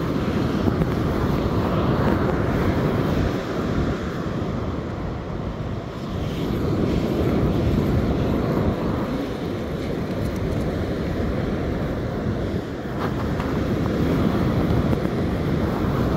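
Wind buffeting the microphone over breaking surf: a loud, low rushing that swells and eases every few seconds.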